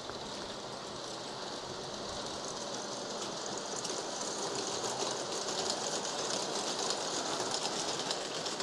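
LGB G-scale garden-railway model trains running over the track and points, their wheels clicking steadily on the rail joints. It grows a little louder from about three seconds in as a train comes close.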